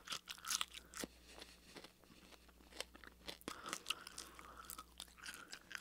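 A person chewing a mouthful of raw watermelon rind: irregular crunchy bites and chews, loudest in the first second or so, then softer.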